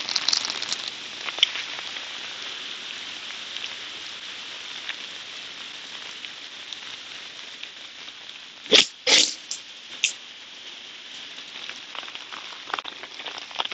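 Steady hiss of rain falling, with a few short sharp noises about nine and ten seconds in.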